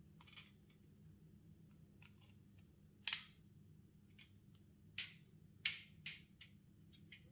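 Sharp plastic clicks and taps from hands handling a HIT electric mosquito racket. The loudest comes about three seconds in and three more follow quickly around five to six seconds, over faint room tone.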